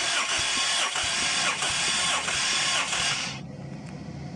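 Toyota 7A-FE four-cylinder engine being cranked by its starter motor with all spark plugs removed, for a compression test of the third cylinder. A steady, even churning with faint regular pulses drops to a lower, duller sound about three and a half seconds in.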